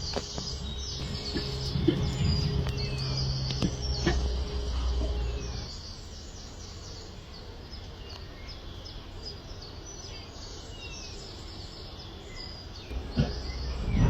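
Birds chirping and calling throughout, over a steady background noise. A low rumble fills about the first six seconds, and a few short sharp knocks come near the start and near the end.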